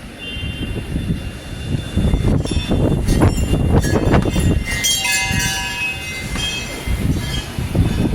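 Strong gusting tropical-storm wind buffeting the microphone in a deep, surging rumble that rises and falls, louder from about two seconds in. A few brief high steady tones sound around the middle.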